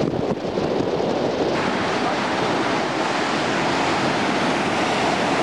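Sea water rushing and breaking along the hull of a surfaced submarine underway, with wind buffeting the microphone. The rush turns hissier about a second and a half in.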